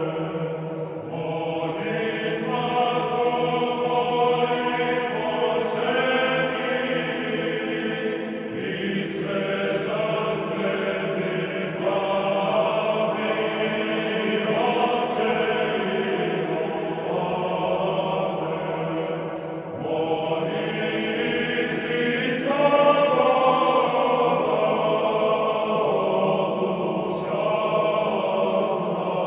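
Orthodox church chant: a choir singing slow, sustained lines that change note every few seconds over a steady held low note.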